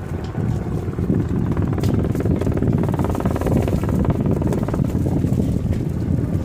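Wind buffeting the microphone: a loud, uneven rumble with no clear pitch.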